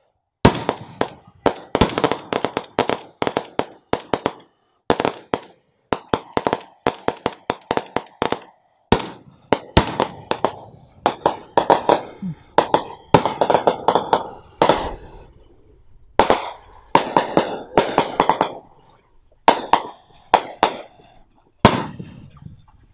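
Firecrackers going off in rapid crackling bursts of sharp pops, with short gaps between bursts.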